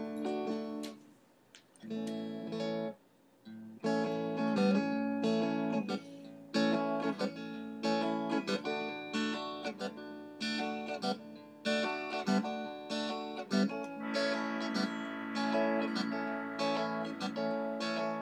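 Acoustic guitar music: plucked notes with a couple of short pauses in the first few seconds, then steady picking. A held higher tone joins about two-thirds of the way through.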